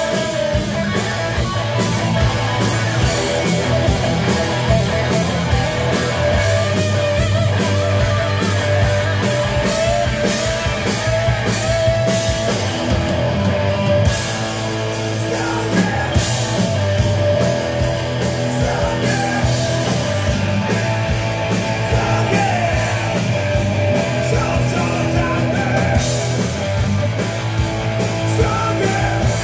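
A rock band playing live: electric guitar over bass and drums, with singing, dense and steadily loud.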